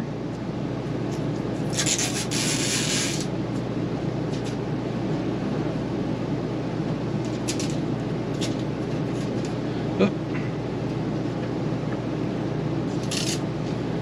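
Packing tape being peeled off a plastic lid: a ripping rasp about two seconds in that lasts over a second, a shorter rip near the end, and a few light ticks between, over a steady background hum.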